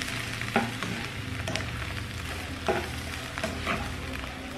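Diced white bread and onion sizzling in butter and olive oil in a granite-coated pan, stirred with a plastic spatula that scrapes and taps the pan several times.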